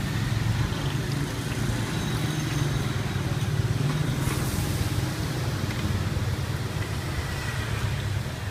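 Battered banana fritters deep-frying in a large wok of hot oil, a steady sizzle, over a constant low rumble.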